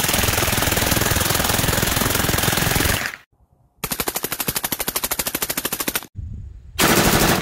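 Three bursts of full-automatic gunfire from machine guns. The first is a rapid burst of about three seconds. After a short pause comes a burst of about two seconds with the shots evenly spaced and distinct. A short burst follows near the end.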